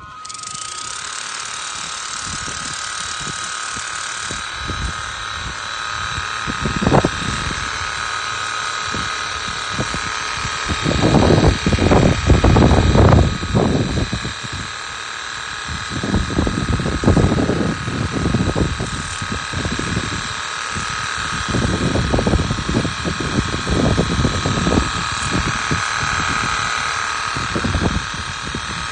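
A mrliance 40V cordless electric pressure washer switches on suddenly and runs steadily, its pump motor giving a steady whine over the hiss of the spray on the soap setting. Uneven, louder rushes come and go through it as the spray moves over the car.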